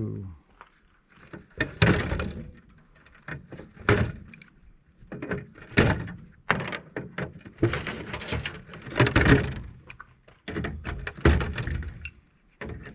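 Irregular metal clanks and thuds as parts are worked loose and pulled out of an air-conditioning unit being scrapped, in several clusters of knocks.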